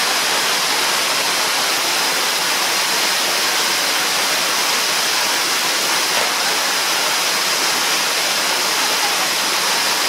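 A small waterfall, about 3 m high, pouring steadily into its plunge pool: an even, unbroken rush of falling water.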